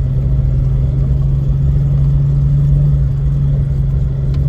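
Jeep LJ's engine running steadily under load while towing a trailer up a dirt road: a continuous low drone with rumble underneath, growing a little louder midway.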